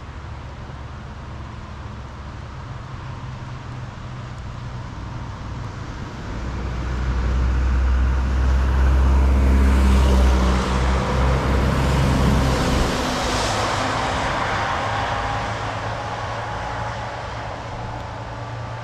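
A vehicle passing by: a low, steady engine drone builds about six seconds in, is loudest for several seconds with a rushing hiss on top, then slowly fades away.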